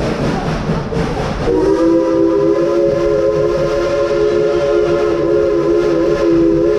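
Steam locomotive whistle blowing one long blast of about five seconds, several notes sounding together, starting about a second and a half in over the noise of the moving train.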